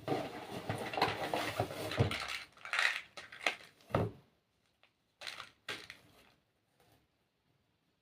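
Packaging and product containers being handled: about two seconds of rustling, then several separate knocks and clatters as items are set down.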